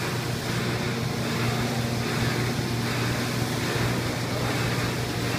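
Paper extrusion-coating lamination line running: a steady low machine hum with a broad hiss over it, unchanging throughout.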